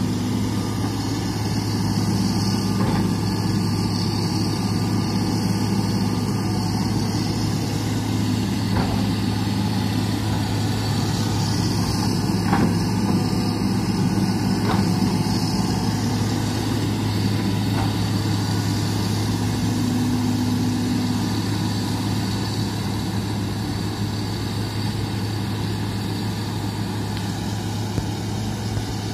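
Hitachi crawler excavator's diesel engine running steadily while it digs, its note swelling and easing slightly with the load, with a few faint knocks.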